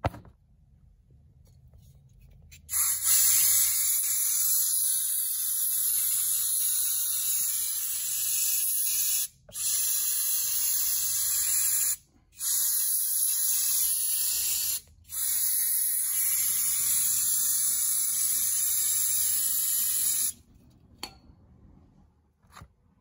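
Aerosol cleaner can spraying onto a carbon-clogged EGR valve to dissolve the deposits. A long hiss of about six seconds is followed by three more sprays of a few seconds each, with short breaks between them, and the spraying stops near the end. A brief knock comes at the very start.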